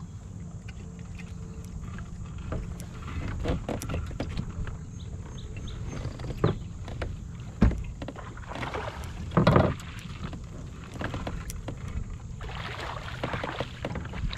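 Handling noise on a plastic fishing kayak during a fight with a hooked smallmouth bass: scattered small knocks and clicks over a steady low rumble of water and wind. There is a louder splash about nine and a half seconds in, and more splashing near the end as the fish thrashes at the surface.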